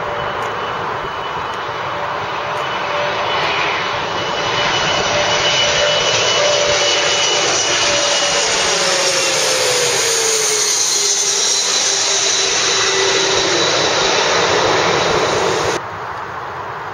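Bombardier CRJ-200 regional jet's two rear-mounted GE CF34 turbofans passing low overhead on landing approach: a steady jet roar that builds over the first few seconds, with an engine whine that drops in pitch as the jet goes by overhead. The sound cuts off suddenly near the end.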